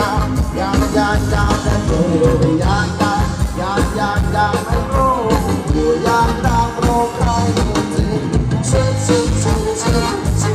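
Live band playing Thai ramwong dance music: a sung melody over a steady drum beat and bass.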